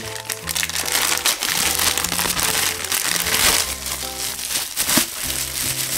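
Plastic wrapping crinkling and crackling as a toy figure is pulled out and unwrapped, over background music with a steady bass line.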